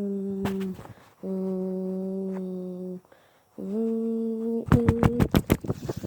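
A low droning tone held three times, each about a second and a half with short silent gaps, its pitch sinking slightly, followed near the end by a rapid run of sharp clicks and crackle.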